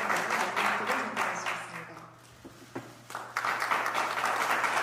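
Applause from a small group, dying away about two seconds in, then starting up again suddenly a second and a half later.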